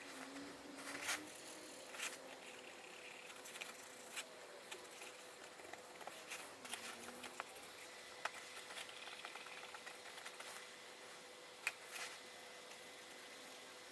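Fingers and a soft cloth rubbing over the leather shell of a pickelhaube helmet, with a few light clicks and taps against it.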